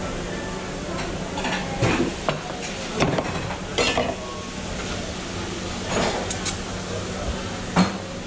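Stainless-steel milk pitchers and cups clinking and knocking on a metal counter, about five separate clatters, over a steady low hum of café equipment.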